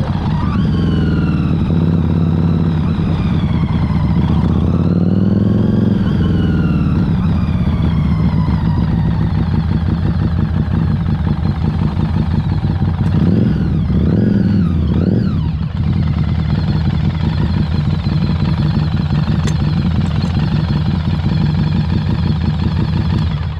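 Harley-Davidson Street 500's liquid-cooled V-twin engine running under way. The engine note falls at the start, rises and falls about four to six seconds in, holds steady, then swings up and down quickly a few times around thirteen to fifteen seconds in before settling again.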